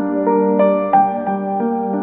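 Background music: a gentle keyboard melody with evenly paced notes, a new one about every third of a second.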